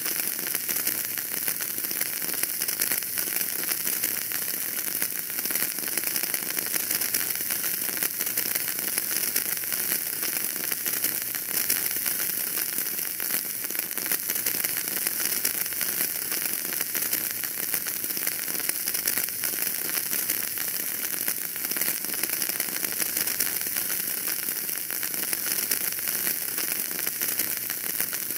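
Wood fire crackling steadily in a fireplace: a dense, even stream of small pops over a soft hiss.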